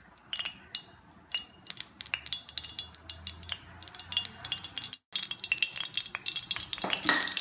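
Coconut oil poured into a hot iron kadai, with scattered light ticks and crackles as it meets the heated metal. The sound cuts out briefly about five seconds in.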